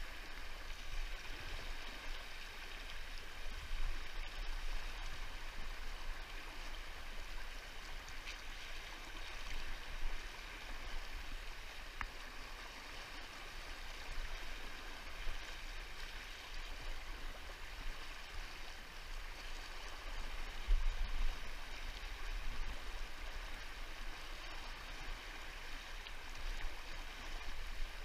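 Fast, shallow river water rushing and rippling steadily over a stony bed close to the microphone, with low rumbles that come and go.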